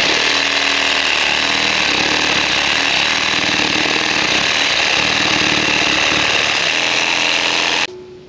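Milwaukee cordless one-handed reciprocating saw cutting through a wooden post, a loud steady buzz that stops abruptly near the end as the cut finishes.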